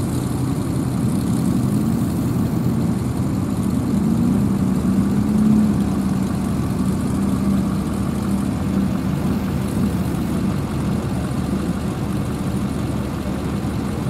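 Engine of a lifted Dodge mud truck running at low, steady revs as the truck rolls slowly on its big mud tyres, with a slight swell in the engine note about five seconds in.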